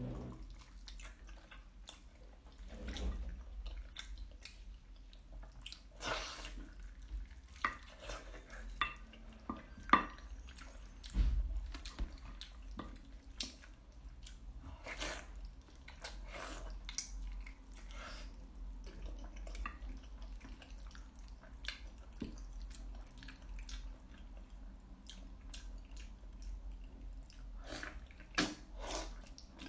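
Wet eating sounds from biting and chewing a sticky braised pork knuckle: scattered lip smacks, squelches and small clicks, with a few louder ones about ten seconds in.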